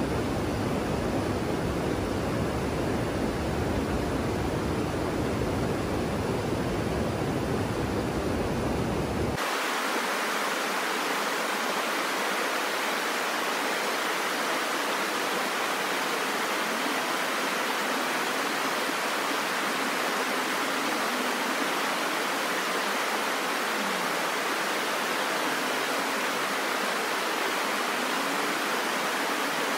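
Steady rush of a shallow rocky stream spilling white over rocks and a weir. About a third of the way in the sound changes abruptly: the deep low rumble drops out and a brighter, hissier rush continues.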